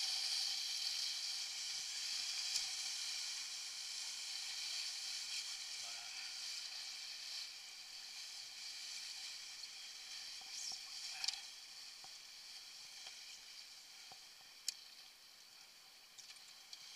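Steady hiss of water and spray rushing past a Buzz sailing dinghy's hull as it sails fast, gradually growing fainter, with a few light knocks.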